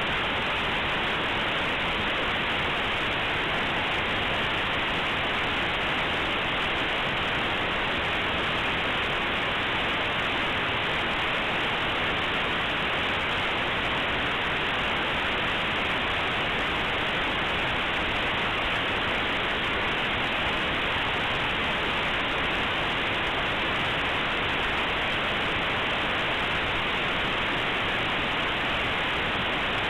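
Compressed Linux kernel image played as raw audio through aplay: a steady, even hiss like radio static, with no change at all. The compressed data is close to random, so it comes out as plain noise with no tones or rhythm.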